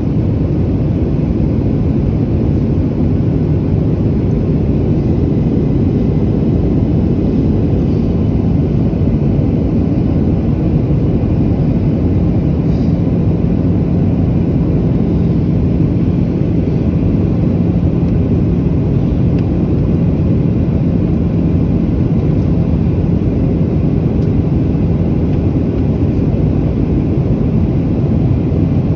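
Steady low rumble of a jet airliner's passenger cabin, with a faint steady hum over it.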